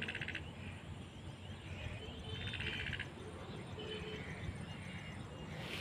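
Outdoor ambience with two short, buzzy, fast-pulsed trills from a calling animal, one near the start and one about two and a half seconds in, and faint bird chirps later on.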